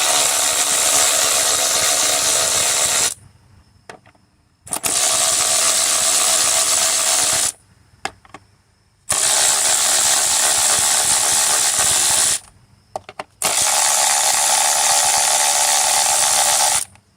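Cordless power tool with a 10 mm socket spinning out the ignition coil hold-down bolts, four separate runs of about three seconds each, one per coil, with short pauses between.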